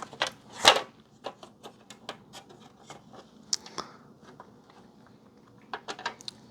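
Irregular small clicks and knocks of hard parts being handled, likely the cable tester's casing as its bottom plate comes off, with one louder knock under a second in.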